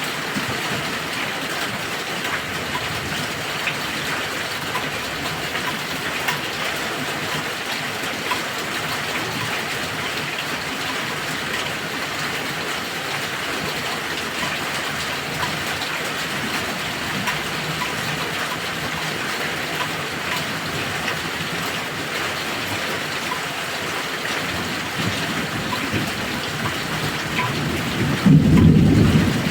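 Heavy rain falling steadily, with scattered drips, and a short, loud low rumble of thunder near the end.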